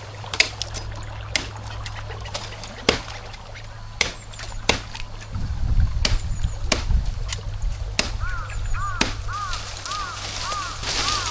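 Forest stream trickling under a string of sharp knocks and snaps at irregular intervals, about eight in all. Near the end a bird starts repeating a short call over and over.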